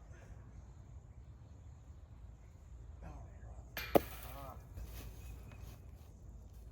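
A single sharp knock about four seconds in, over faint outdoor background.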